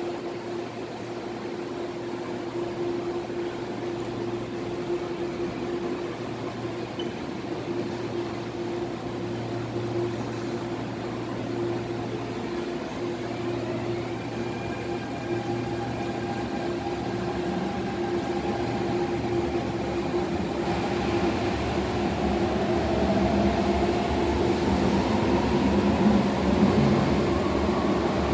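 MTR Airport Express A-Train electric multiple unit behind the platform screen doors, its motors whining over a steady hum. In the last few seconds the whine rises in pitch and grows louder as the train gathers speed.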